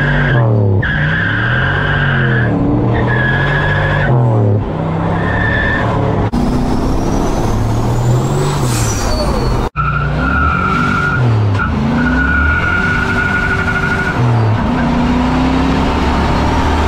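Car engine revving up and down over and over, with tyres squealing in long steady screeches between the revs. The sound breaks off for an instant about ten seconds in.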